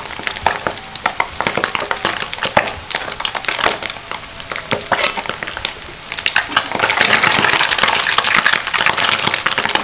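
Wet anchovies frying in hot oil, crackling with many sharp pops over a steady sizzle. About six and a half seconds in, the sizzle grows denser and louder.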